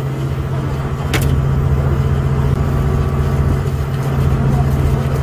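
A fishing boat's engine running steadily with a low hum. A single sharp click sounds about a second in.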